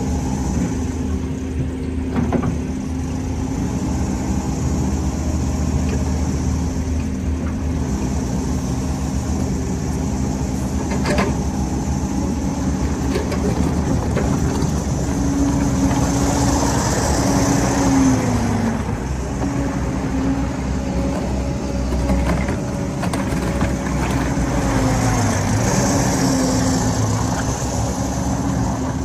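John Deere 317G compact track loader's 65 hp Yanmar diesel engine running steadily, its pitch rising and shifting a few times in the second half as if under load, with a couple of sharp knocks.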